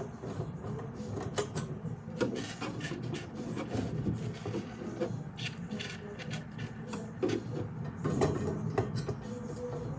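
A hand screwdriver drives small screws into a metal can rack, with irregular clicks and scrapes of metal parts, over a low steady hum.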